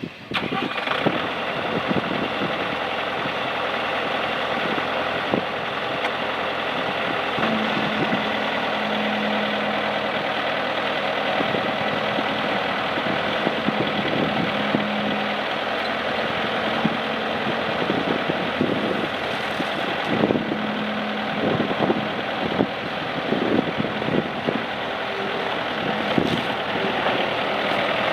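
Bobcat S185 skid steer's diesel engine coming on suddenly at the start and then running steadily at idle. Scattered knocks and clunks come in the second half.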